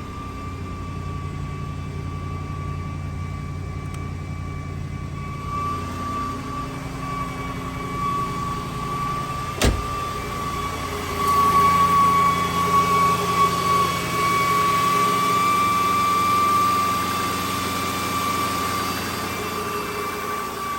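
High-pitched steady whine from the 2008 Jaguar XJ's failing original alternator over the engine running, the sign of the alternator giving out (a battery warning light was showing). A single sharp click about ten seconds in, and the whole sound grows louder from about eleven seconds.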